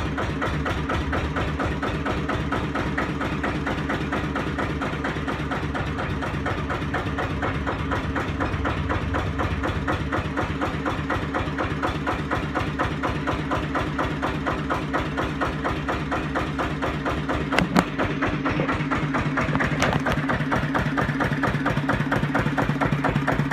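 1936 Lister CS 5/1 single-cylinder stationary diesel engine, rated at 600 rpm, running steadily after a rebuild, with a fast even rhythmic beat over steady tones. A single sharp click comes about three-quarters of the way in.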